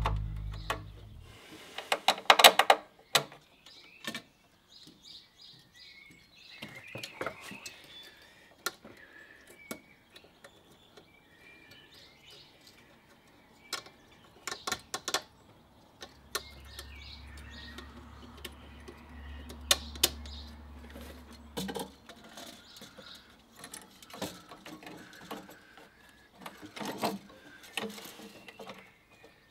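Scattered clicks, knocks and rattles of hands handling an aluminium transmission oil cooler and its metal line fittings at a car's front end, with birds chirping in the background. A low steady hum comes in for several seconds in the middle.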